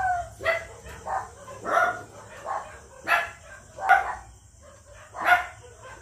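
A dog barking repeatedly, about ten short barks at irregular intervals.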